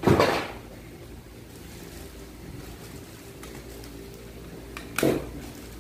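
Handling noise from a solar panel being moved over its clear plastic packaging: a short crinkling burst at the start and another about five seconds in. A steady low hum runs underneath.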